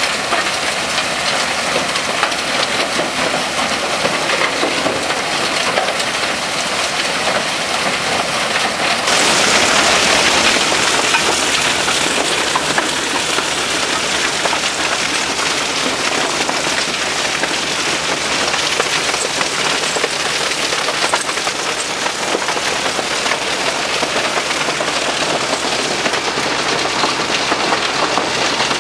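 Rubble Master RM80 mobile impact crusher running under load, crushing rock: a loud, steady clatter and rattle of stone through the machine. It gets louder about nine seconds in.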